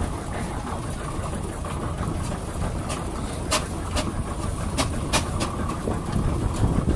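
A 1913 Aveling & Porter steam roller's engine running under steam: a steady low rumble with scattered sharp metallic clicks and knocks.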